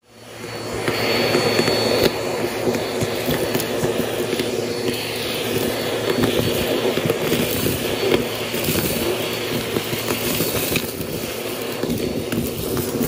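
Vacuum cleaner running, its crevice tool sucking lint, dust and small pebbles off carpet; the motor noise builds over the first second, then stays steady, with frequent clicks and rattles of grit going up the nozzle.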